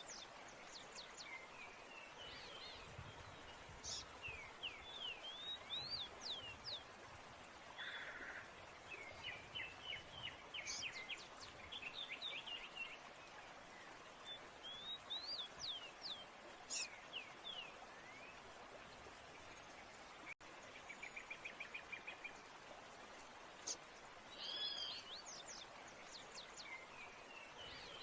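Wild songbirds calling: many short whistled chirps and quick rising and falling notes, with a fast trill about twenty seconds in, over a steady faint hiss.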